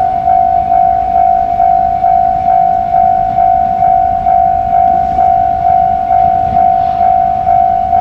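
Japanese railway level crossing alarm ringing: a loud electronic ding repeated evenly a little more than twice a second. Beneath it, the low rumble of an approaching electric commuter train.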